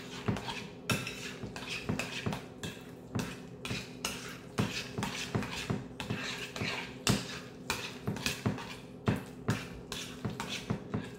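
Utensil clinking and scraping against a bowl as egg salad is stirred, in uneven quick taps about three a second.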